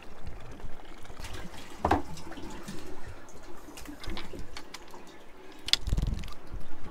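Water splashing and dripping in a boat's live bait tank as a hand scoops a baitfish out of the mesh net, with scattered knocks and a dull thump near the end.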